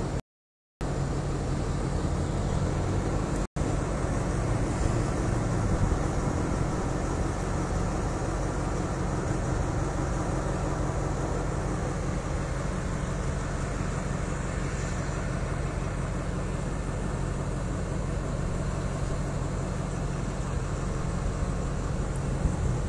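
Alsthom (ALS) diesel-electric locomotive's diesel engine running with a steady low drone as it slowly draws a passenger train in, growing louder near the end. Two brief gaps of silence break it in the first few seconds.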